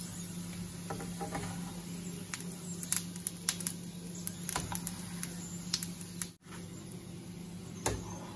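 Metal kitchen tongs clicking and tapping against a non-stick frying pan while fried banana fritters are lifted out: several sharp, separate clicks over a steady low hum.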